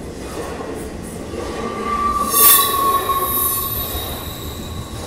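Coal train hopper cars squealing metal on metal over a low rumble, with a steady high whine and one loud shrill squeal about halfway through.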